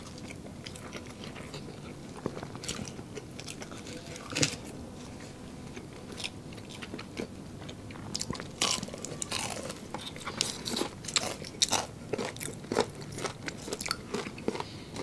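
Crispy fried chicken being bitten and chewed close to the microphone: crunchy bites, sparse at first, coming thick and fast from about eight seconds in.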